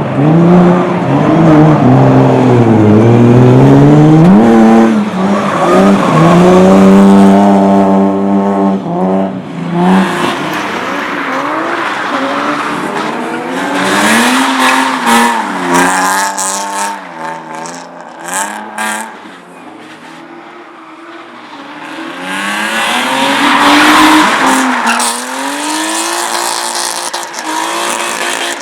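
Race car engines revving hard, pitch climbing and dropping again and again through gear changes and lifts, with tyres squealing as the cars corner, loudest about halfway through and again near the end.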